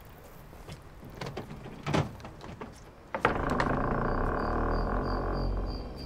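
Scattered light taps and a sharp knock, then about three seconds in a sudden loud low rumbling drone sets in as an eerie sound effect. Over it a cricket chirps steadily, about three times a second.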